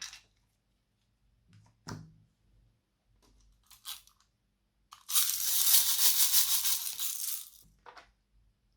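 Slime being worked by hand, with a few short squishing or crackling sounds, then a loud, dense crackling lasting a few seconds from about five seconds in.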